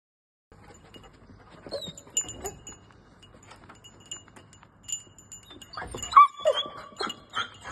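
A search-and-rescue training dog gives a short, loud yelp that falls in pitch about six seconds in, amid light metallic jingling and small clicks and rustles.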